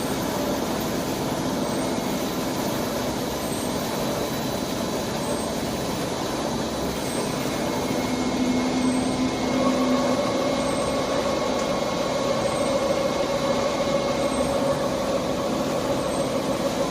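Heavy-duty CNC lathe running steadily through a metal-turning cut, a continuous machine noise with a hum; a higher-pitched tone grows louder about halfway through, and a faint high chirp repeats about every two seconds.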